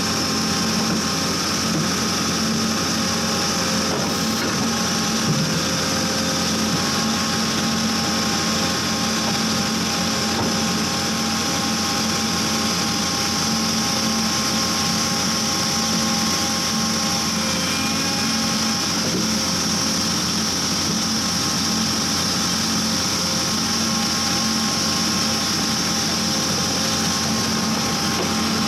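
Vermeer D80x100 horizontal directional drill rig running steadily, its engine and hydraulics giving a constant drone with a steady high whine on top.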